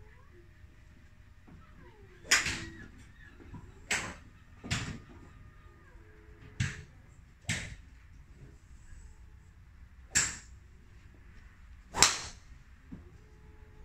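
Golf clubs striking balls off driving-range mats: seven sharp cracks, the loudest about two and twelve seconds in. The one about twelve seconds in is a driver hitting a teed ball close by, and the others come from strikes in nearby bays.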